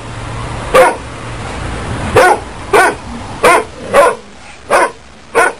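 A dog barking in short, sharp single barks, seven in all, spaced about half a second to a second and a half apart.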